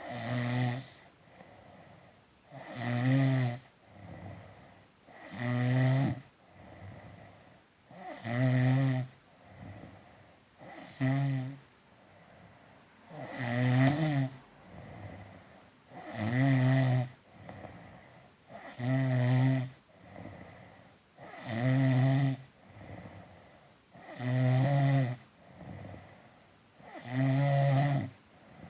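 Steady, regular snoring: about eleven loud rattling snores, one every two to three seconds, each lasting about a second, with softer breaths between them.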